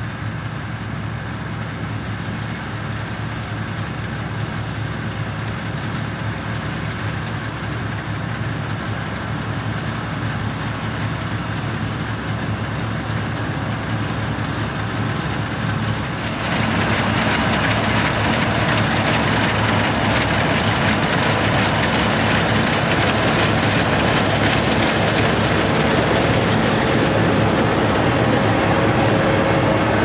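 New Holland combine harvester running while harvesting barley: a steady drone of engine and threshing machinery that slowly grows louder, then jumps suddenly louder and brighter about halfway through and holds there.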